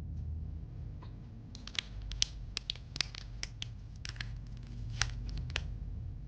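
Snack packaging being handled, giving a run of sharp, irregular clicks and crackles that starts about a second and a half in and stops shortly before the end.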